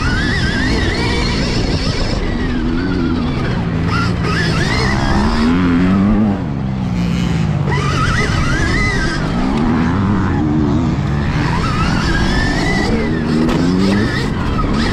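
Stark Varg electric motocross bike's motor whining, its pitch rising and falling again and again as the rider rolls on and off the throttle, over a steady rush of wind and tyre noise.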